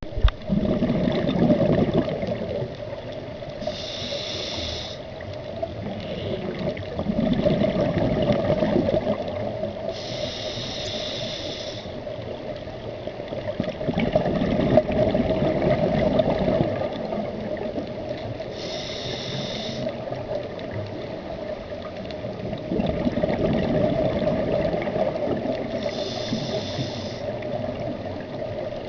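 Scuba diver breathing through a regulator underwater, four slow breaths: a short hiss of air on each inhale, then a long burble of exhaled bubbles.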